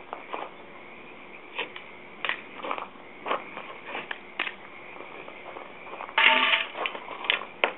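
Footsteps and scuffing on loose gravel, with small knocks from handling tools and wood. About six seconds in there is a louder clank with a brief ringing tone, as a long metal bar is handled.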